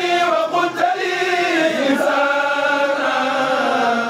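A kourel, a choir of men, chanting a Mouride khassida together: long held sung lines that glide slowly up and down in pitch.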